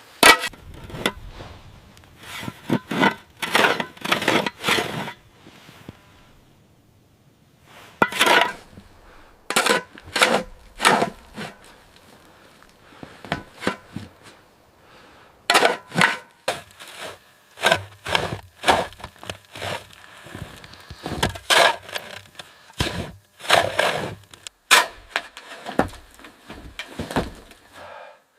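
Wood cracking and snapping: an irregular run of sharp cracks and breaks in clusters, with short pauses between them.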